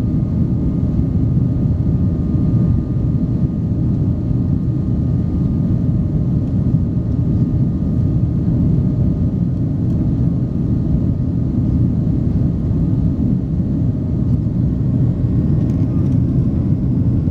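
Boeing 767-300 jetliner after takeoff: a steady, loud low roar of the jet engines and rushing air, with a faint constant whine above it.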